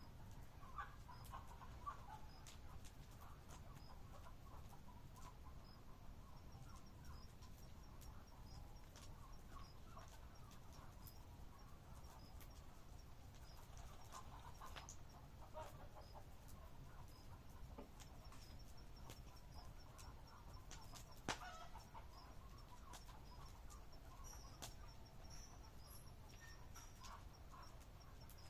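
Faint crackling of a campfire: scattered sharp clicks and one louder pop about two-thirds of the way through, over a low rumble. A quick, evenly repeated high chirp, like an insect, joins about a fifth of the way in, and faint short animal calls come and go.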